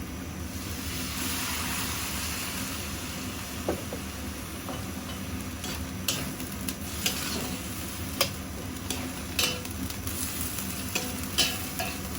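Eggplant frying in hot oil in a pan, a steady sizzle that swells about a second in. From about halfway on, a spatula clicks and scrapes against the pan as the eggplant is stirred.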